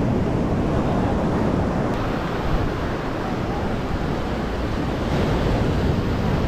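Ocean surf breaking on a sandy beach, a steady wash of waves, with wind buffeting the microphone.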